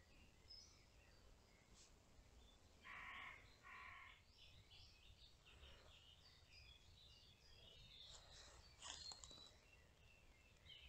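Faint woodland birdsong: small birds chirping and twittering, with two short harsh calls about three and four seconds in and a busier flurry of calls near the nine-second mark.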